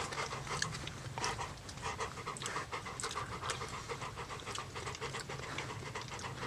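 A dog panting steadily in short, even breaths.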